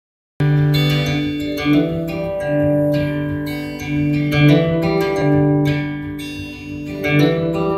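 Acoustic guitar strumming an intro chord progression, the chords changing every second or so. The sound starts abruptly just under half a second in.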